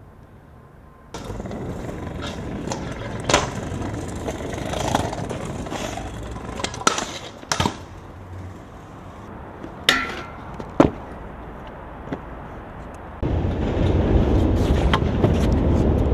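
Stunt scooter wheels rolling on concrete, with several sharp clacks of the wheels and deck landing or striking the ground. The rolling gets suddenly louder about a second in and again near the end.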